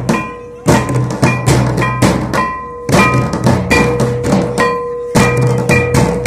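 Santali folk drums beaten with sticks, playing a fast dance beat in repeating phrases, with short breaks about every two seconds. A steady held tone sounds above the drumming.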